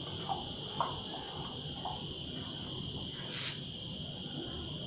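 Crickets trilling steadily in the background, a high continuous tone with a faint pulsing overlay, with a few faint short sounds and a brief burst of noise a little over three seconds in.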